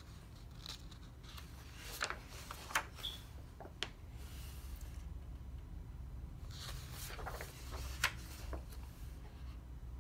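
Large paperback coloring book's pages being turned by hand: paper rustling with soft swishes and a few sharp crinkles and taps, twice turning over a page.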